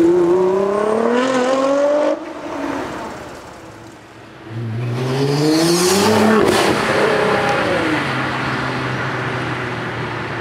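Monstaka GT800-tuned Nissan GT-R R35's twin-turbo V6 accelerating hard, its note rising through the revs until it cuts off abruptly about two seconds in. A second pull rises again as the car passes close, around five to six seconds in, then settles to a steadier, lower note as it drives away.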